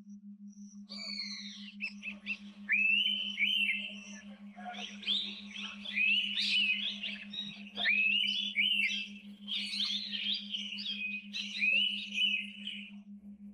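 Several forest birds calling at once, with rapid, overlapping whistled and chattering notes that start about a second in and stop shortly before the end. Underneath is a steady, rapidly pulsing low hum.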